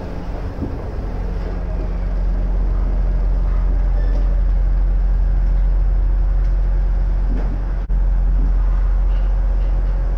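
Steady low hum of an Iga Railway electric train (a rebuilt ex-Tokyu car), heard from inside as it draws into a station and stands at the platform. The sound breaks off for an instant near the end.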